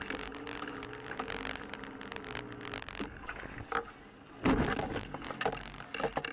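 A car's cabin noise picked up by a dashcam while driving: a low steady engine hum with many small clicks and rattles. A sudden loud thump comes about four and a half seconds in.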